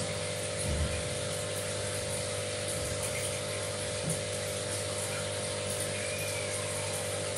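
Aquarium pump running: a steady electric hum over the constant hiss of moving water.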